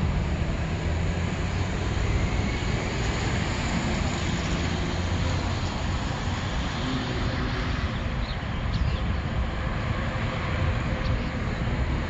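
Steady low rumble and hiss of outdoor traffic noise, even throughout with no distinct events.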